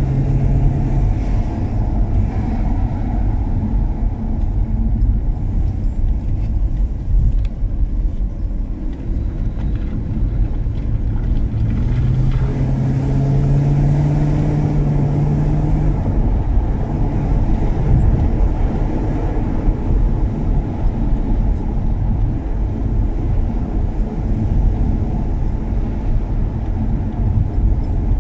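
BMW E39 535i's 3.5-litre V8 running under way with steady low road rumble; the engine note comes up, rising slightly, for a few seconds about twelve seconds in.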